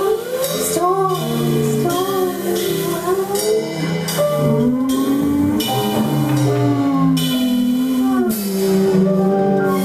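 Live jazz quartet playing: piano, bass and a drum kit with cymbals, with a woman's voice singing over them.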